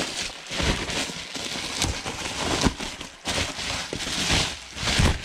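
Bubble wrap crinkling and rustling in irregular bursts as it is pulled off a Minarelli scooter engine block, with a few short dull knocks.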